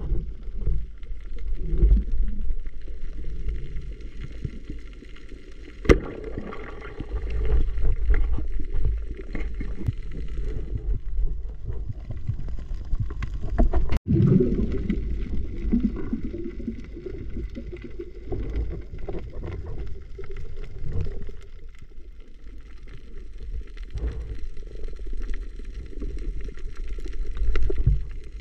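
Muffled underwater rumble and water movement, heard through a camera's waterproof housing as a diver moves along the bottom. A sharp knock comes about six seconds in and another near the end.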